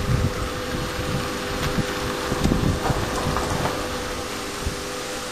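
Vigas wood-gasification boiler's fan running with a steady hum over an uneven low rumble, drawing the fire after the firebox has been shut.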